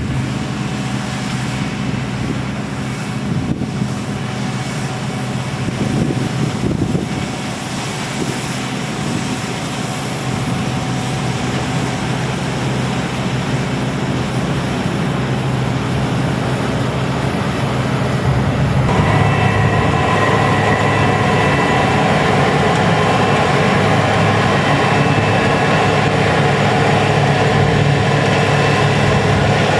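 Heavy diesel harvest machinery running steadily. About 19 seconds in it changes abruptly to a louder sound with a steady whine over the engine.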